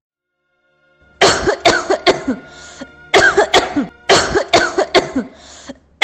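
A woman coughing hard in three fits of several coughs each, starting about a second in. It is the cough of someone falling ill.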